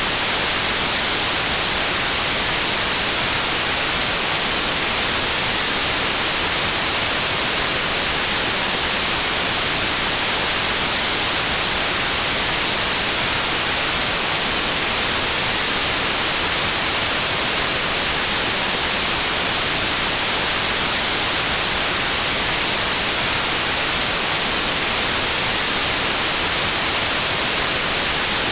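Steady synthetic white noise: an even, unchanging hiss, strongest in the treble.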